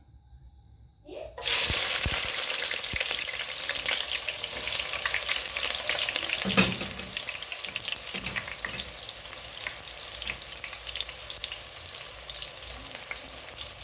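Onions dropped into hot cooking oil, sizzling and crackling as they fry. The sizzle starts suddenly about a second and a half in, is loudest at first and slowly eases off, with one sharper knock about halfway through.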